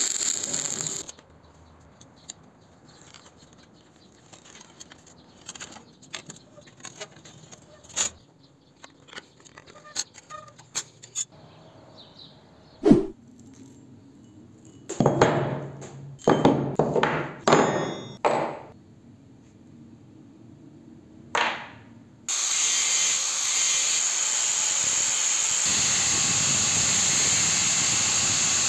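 Stick welding crackles for about a second and cuts off, followed by scattered clicks and knocks with a few louder bursts of noise in the middle. Near the end an abrasive cut-off wheel starts cutting a steel engine-valve stem clamped in a vise, a steady loud grinding.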